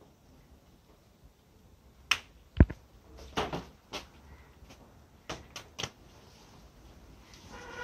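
A series of sharp knocks and snaps, about seven in a few seconds, the loudest a heavy thud about two and a half seconds in.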